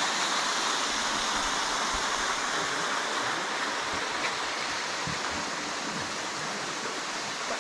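Steady rushing of a small waterfall spilling over rock ledges into a pool, slightly fainter near the end.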